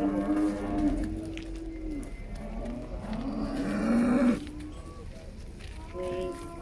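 Cattle mooing: two long, low moos, the second louder and cutting off sharply about four seconds in.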